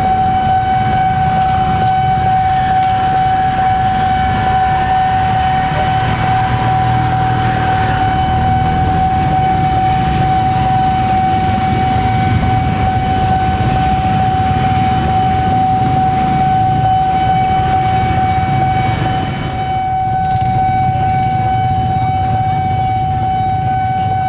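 Railroad level-crossing warning alarm sounding one unbroken steady tone, over the low running of motorcycle and traffic engines waiting at the crossing.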